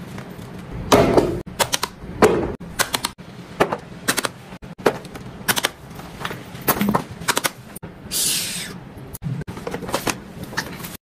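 Fidget toys being handled: a run of irregular sharp clicks and snaps, with a short hiss about eight seconds in.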